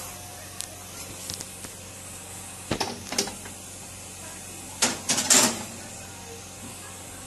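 Metal clanks and scrapes as a metal cupcake tray is pushed onto the rack of an open gas oven: a few light clicks, a cluster of knocks about 3 s in, and the loudest clatter about 5 s in, over a steady low hum.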